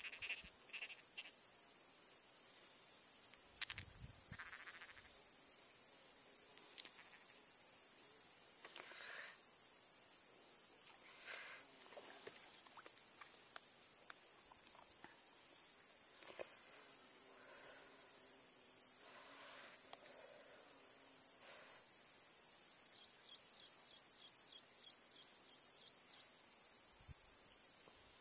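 Insects, crickets among them, trilling steadily at a high pitch, with a faint short chirp repeating roughly every half-second. A few soft knocks and rustles of handling come now and then.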